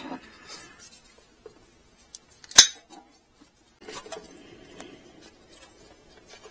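Small workshop handling noises while a rubber fuel line is routed and fitted on the carburetor: a few light clicks and one sharp snap about two and a half seconds in, then faint rustling.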